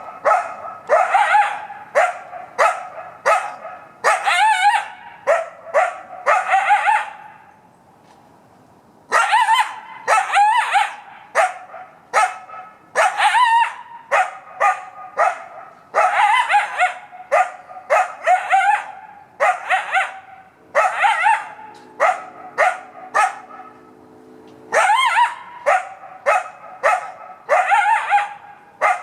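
Coyote barking over and over in runs of sharp barks, many trailing off into a wavering, yelping tail, with one brief pause about a quarter of the way through.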